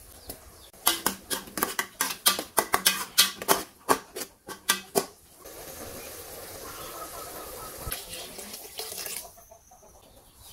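Minced pork frying in a hot aluminium pot, with a run of sharp crackles and clicks. About halfway through, water goes in and gives a steady rush of pouring and hissing that lasts a few seconds and stops near the end.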